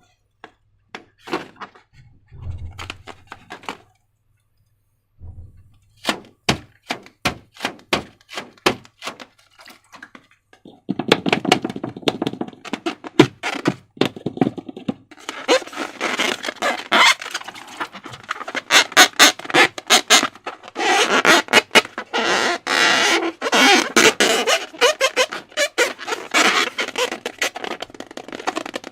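Slime being worked by hand: sticky clicks and crackles, scattered at first, then a dense, continuous crackling from about a third of the way in.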